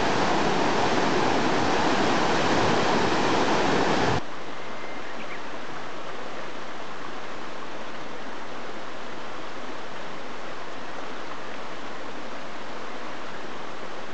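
Snowmelt-swollen river rushing through white-water rapids, a loud steady roar of water that cuts off abruptly about four seconds in. It gives way to a much quieter steady rushing hiss.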